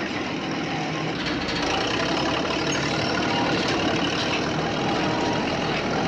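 Radio-controlled toy bulldozer running on its tracks over dirt and leaves, a steady engine-like running sound.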